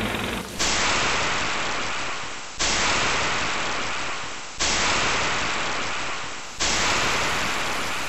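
A burst of static-like hiss repeated four times, about every two seconds: each one cuts in suddenly and slowly fades. It is a looped noise sample in an edited sound collage.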